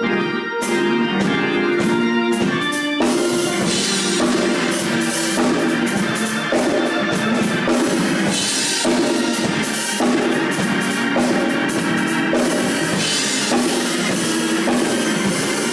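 Worship band playing instrumental music: sustained organ chords over a drum kit, the drums and cymbals coming in fuller about three seconds in.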